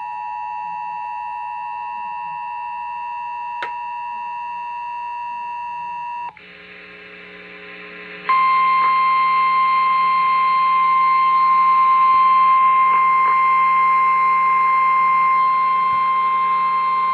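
Emergency Alert System two-tone attention signal, two steady notes sounding together, cuts off about six seconds in. After a short lull with low hum, a single steady warning alarm tone sounds for about nine seconds. The tones announce a tornado warning.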